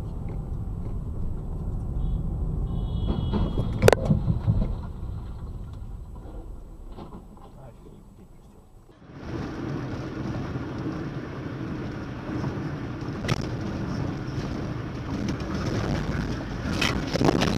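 Dashcam audio of a car collision. Low engine and road rumble runs under a brief high squeal, then a single sharp crash of impact about four seconds in. After that comes steady wind and road noise from a car driving, growing louder toward the end.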